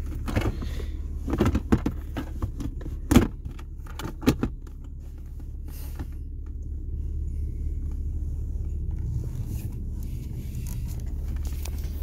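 Clicks and knocks from an OBD-II scan tool's cable and plastic connector being handled, most of them in the first half, over a steady low rumble.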